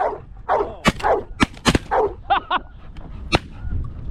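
Shotgun blasts at geese, four sharp shots in about two and a half seconds, amid repeated short honking animal calls.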